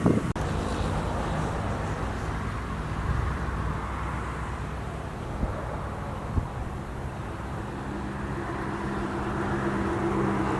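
A motor vehicle's engine running with a steady low hum over a hiss of background noise, growing slowly louder toward the end.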